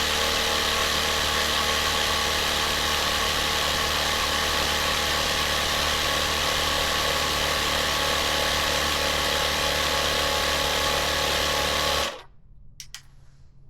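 Small air compressor motor running steadily while inflating a motorcycle's front tyre from 31 psi, then shutting off suddenly about twelve seconds in, followed by a few light clicks.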